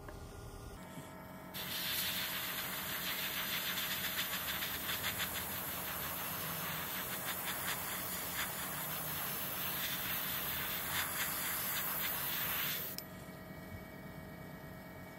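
Airbrush spraying thinned acrylic paint: a steady hiss of air and paint mist that starts about a second and a half in and cuts off after about eleven seconds.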